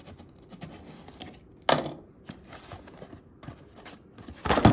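Rustling and crinkling as packaging is handled, with a sharp crackle about 1.7 s in and a louder rustling burst near the end.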